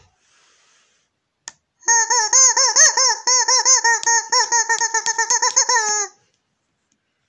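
Rubber chicken squeezed rapidly over and over, giving a fast run of squeaky squawks with an airy hiss, about six a second for roughly four seconds. It starts about two seconds in, after a single click, and stops sharply.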